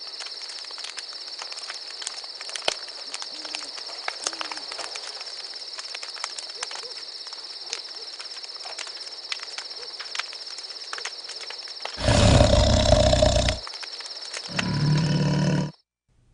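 Steady high-pitched buzzing ambience with scattered faint clicks, then two loud animal roars, the first about twelve seconds in and the second about a second later, cutting off abruptly.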